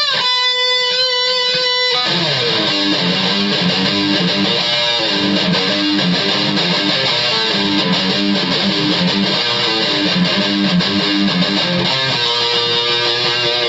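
Electric guitar played through a Boss ME-20 multi-effects pedal. It opens on a held, bent note with a clean tone, then about two seconds in switches to a dense, distorted riff, and near the end settles on a held chord.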